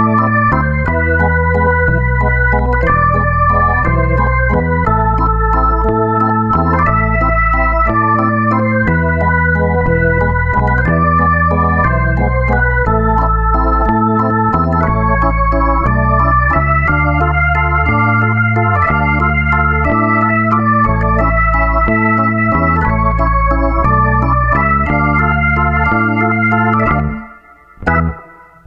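Background music: sustained organ-like keyboard chords over a bass line that changes note every second or so. It breaks off briefly near the end, then resumes.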